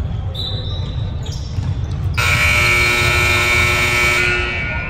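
Game buzzer sounding one long, steady blast of about two and a half seconds, starting about two seconds in.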